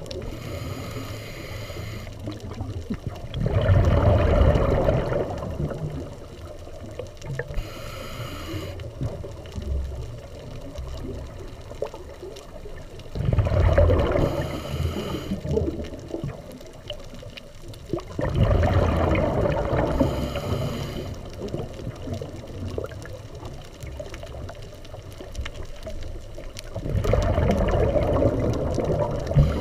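Scuba diver breathing through a regulator underwater: a hiss on each inhale, and a burst of bubbling on each exhale, four exhales in all, a few seconds apart.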